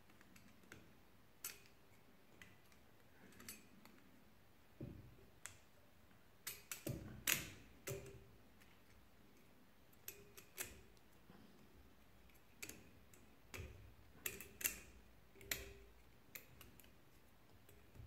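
Scattered light clicks and taps of a thin metal cylinder-head gasket being handled and slid down over the cylinder studs, busiest around seven seconds in and again near fifteen seconds.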